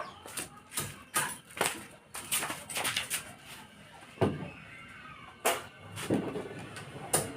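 An irregular series of light knocks and clicks from small wooden miniature parts being handled and fitted together.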